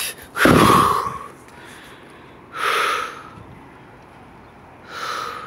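Heavy, out-of-breath breathing close to the microphone: three loud breaths about two seconds apart.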